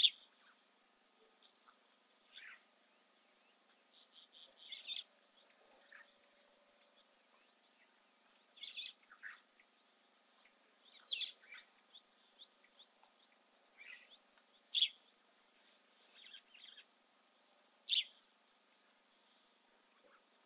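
Wild birds calling: short, high chirps come every second or two, some as quick runs of a few notes, a handful louder than the rest.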